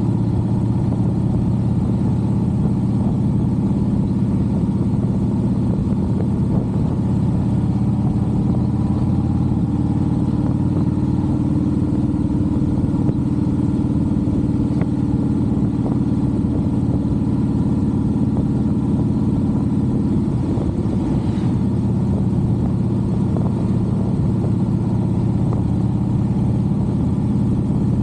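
Cruiser motorcycle engine running steadily while riding at an even speed, heard from on the bike with road rumble under it. The engine note changes briefly about twenty seconds in.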